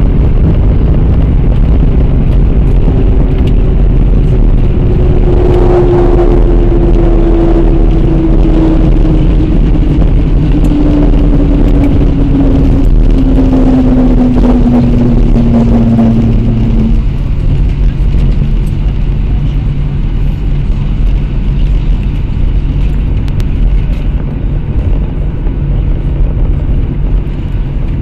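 Cabin noise of a Boeing 737-800 rolling out after landing, heard from a window seat over the wing: a loud rumble of engines and wheels. For the first half a falling whine sounds as the CFM56 engines wind down. After that the rumble settles to a slightly quieter, steady hum as the jet slows.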